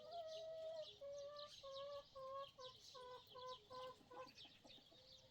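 A chicken calling faintly: one drawn-out note, then a run of clucks that grow shorter and quicker before stopping. Small birds chirp high in the background.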